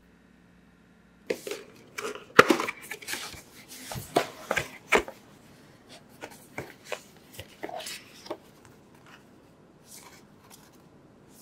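Paper and cardboard packaging being handled: the paper flaps of a box folded open and printed cards lifted out, a run of rustles, crinkles and light taps. It starts about a second in, is busiest over the next few seconds, and thins to occasional faint rustles.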